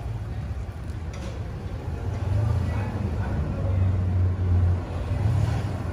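Steady low rumble of a vehicle in motion, swelling a little partway through.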